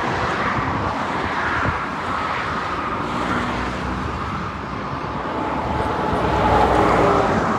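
Road traffic noise: a steady rush of passing vehicles, swelling as a nearer one goes by about six seconds in.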